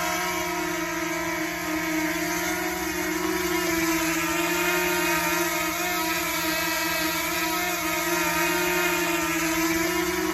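DJI Mini drone's propellers whining steadily in flight, the pitch wavering slightly up and down.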